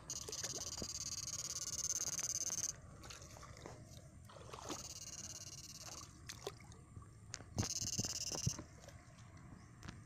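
Shallow water sloshing and splashing as someone wades through weeds, with scattered small knocks. Stretches of high hiss cut in and out abruptly, at the start and again late on.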